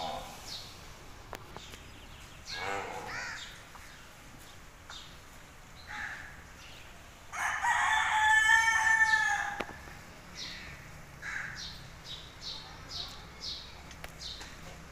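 A rooster crowing once, a loud call of about two seconds midway, with small birds chirping in short repeated notes in the background.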